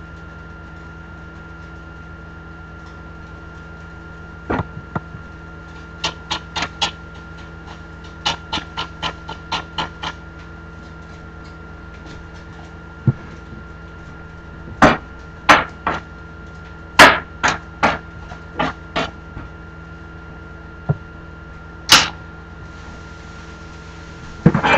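Kitchen work at the counter: scattered sharp knocks and taps of utensils on hard surfaces, some in quick runs of a few per second and a louder cluster past the middle, over a steady hum.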